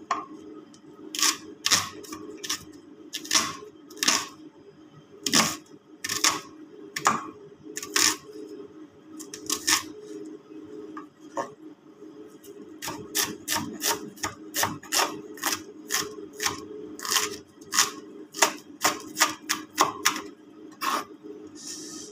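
Kitchen knife slicing onions on a wooden cutting board: sharp, uneven chops that come faster in the second half, with a pause about halfway through.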